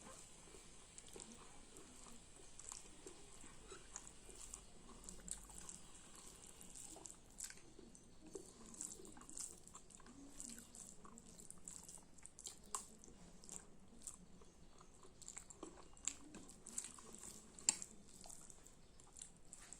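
A person eating close to the microphone: soft, wet chewing and mouth sounds with a string of small clicks and smacks, a few louder ones in the second half.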